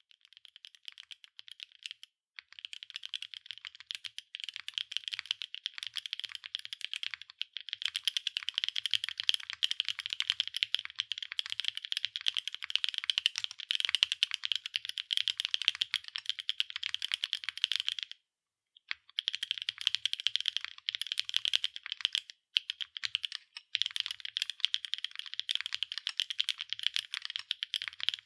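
Fast continuous typing on a NEO80 mechanical keyboard with LICHICX Durian Ice Cream linear switches (nylon housings, POM stems), an aluminium plate and PBT/ABS double-shot keycaps, a dense run of crisp keystroke clicks. Typing stops briefly a few times, the longest about 18 seconds in.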